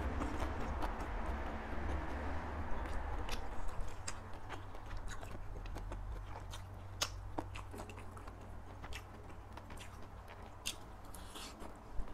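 Close-miked chewing of crunchy long-bean salad (tam thua), with many sharp wet mouth clicks scattered throughout over a steady low hum.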